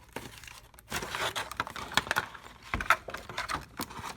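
Handling noises: rustling, small clicks and knocks as the torch and its packaging are moved around, with one heavier knock near the end.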